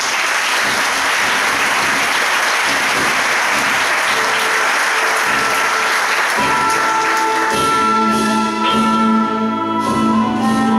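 An audience bursts into loud applause. About halfway through, an instrumental band starts playing over the clapping, which carries on beneath the music.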